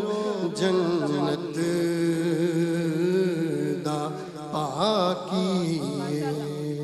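A man's voice chanting a Punjabi verse into a microphone in long, held, wavering notes.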